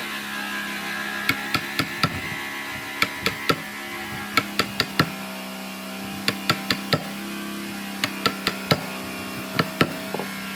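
Sharp knocks of a tool striking wood, in quick irregular clusters of two or three, over a steady low hum.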